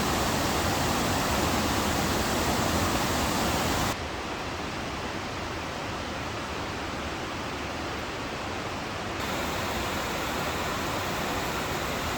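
Steady rush of running water, the even hiss and roar of a waterfall or fast stream. It drops in level abruptly about four seconds in and rises a little about nine seconds in.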